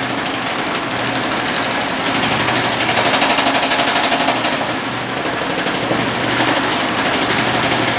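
Homemade differential-driven power hammer pounding sheet metal between its dies in a fast, steady train of blows, shrinking the panel as it is fed through. The pace dips briefly about five seconds in, then picks up again.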